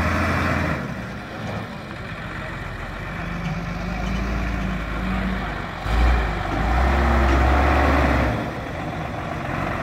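FY-300 pneumatic down-the-hole water-well drilling rig running: a steady low engine hum under a loud hiss of compressed air. It swells about six seconds in.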